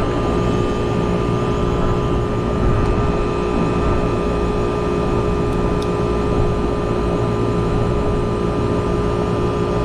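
Trane rooftop air-conditioning unit running: the compressor humming and the condenser fan blowing make a loud, steady drone with a constant low hum and two steady tones. Both the compressor and the condenser fan motor are running and drawing normal current.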